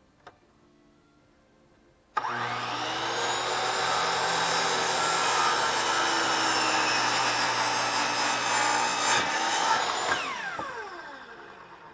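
DeWalt compound miter saw starting abruptly about two seconds in and cutting through a pressure-treated board. About ten seconds in it is switched off and the blade winds down, its whine falling in pitch.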